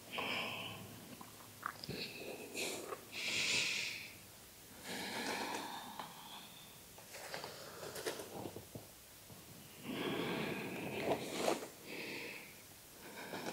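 A woman's heavy breathing close to the microphone: about six audible, hissing breaths in and out, a couple of seconds apart, as she works her thighs on a foam roller after hard exercise. A few faint taps sound between the breaths.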